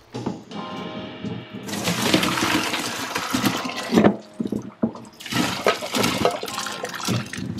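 Hot cooking water and boiled baby potatoes poured from a pot into a stainless steel colander in a sink. There are two long pours, with the potatoes knocking against the metal colander.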